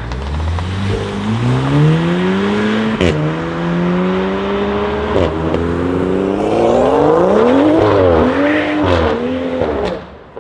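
BMW M2 F87 with a decatted Fi exhaust accelerating hard through the gears. The engine note climbs, breaks with a sharp crack at each of two upshifts about 3 and 5 seconds in, and climbs again. It peaks, falls away unevenly and drops off suddenly near the end.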